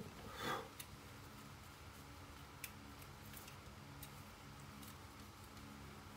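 Faint handling noise of metal-framed eyeglasses: a brief rustle about half a second in, then a few light clicks, over a steady low hum.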